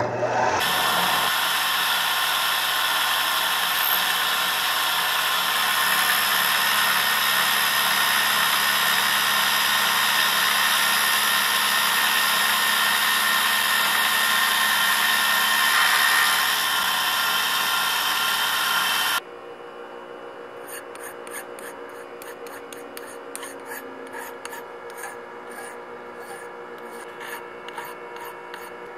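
Fly cutter on a Tormach mill skimming across the tops of two aluminum blocks, a steady loud cutting sound with a hiss and whine. About nineteen seconds in it stops abruptly, leaving a much quieter running sound with light ticking.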